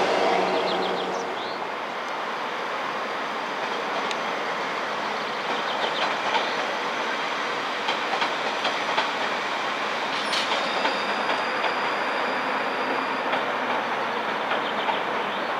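Train wheels rolling over rail joints: a steady rumble with frequent light clicks and a few faint high squeals. A low hum fades away in the first second or two.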